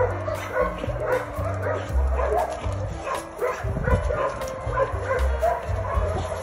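A jagdterrier yipping and whining as it digs, nose down in a hole, with many short sharp clicks through it. Background music with a steady bass line runs underneath.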